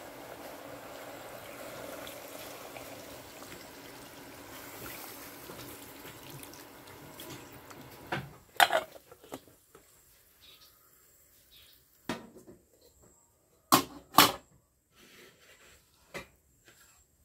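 Water poured steadily from a bowl onto meat pieces in a metal cooking pot for about eight seconds. It is followed by several sharp clanks and knocks of pot and dishes, two of them loud.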